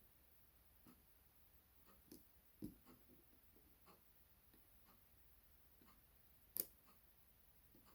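Faint, scattered clicks and ticks of a lock pick and tension wrench working the pins of a Sargent pin-tumbler lock cylinder, with one sharper click about six and a half seconds in.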